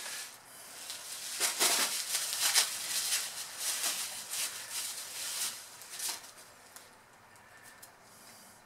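Plastic wrapping crinkling and rustling as hands unwrap small parts, with many small crackles for about six seconds, then only faint rustles.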